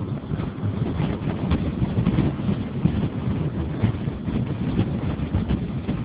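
Vehicle running along the road, heard from on board as a steady, rough low rumble, with wind buffeting the microphone.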